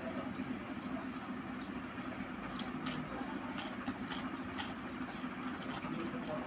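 Eating by hand from a steel plate: soft chewing and mouth clicks with fingers working rice, over a steady low hum. A small bird chirps in the background, a short high note repeated about three times a second.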